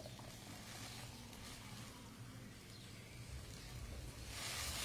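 Quiet room tone: a low steady hum with faint hiss, the hiss growing slightly near the end.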